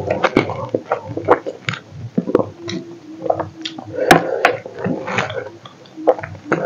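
Close-miked eating with the fingers: wet chewing and lip smacks, and fingers squishing rice and chicken curry, heard as irregular short clicks and squelches.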